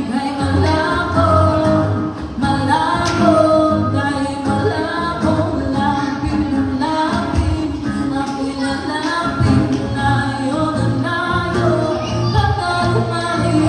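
Live acoustic song: a singer sings into a microphone, accompanied by a strummed acoustic guitar.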